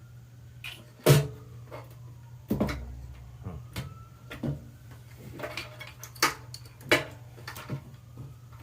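Irregular knocks, clicks and clatter of e-bike parts and tools being handled during assembly, the loudest knock about a second in, over a steady low hum.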